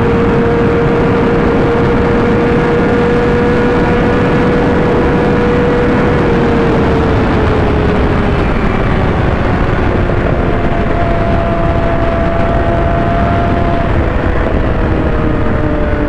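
600cc inline-four sport bike engine at high revs in sixth gear, close to top speed, heard from the rider's seat under heavy wind rush. The engine note holds steady and high for about six seconds, then slowly drops in pitch as the throttle is eased. A second, higher engine tone joins about ten seconds in and falls away too.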